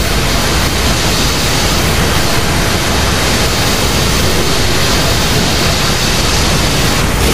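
Sound effect of monster energy beams firing: a loud, steady rushing noise with no change in pitch.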